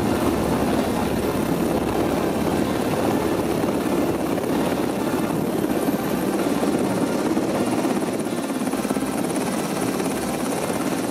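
US Coast Guard MH-60 Jayhawk helicopter running with its rotors turning, a steady, loud rotor and engine noise.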